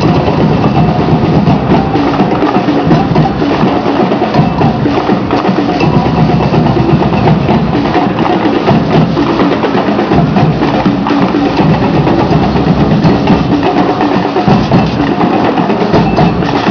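A carnival comparsa's percussion band playing a dense, steady batucada-style drum rhythm.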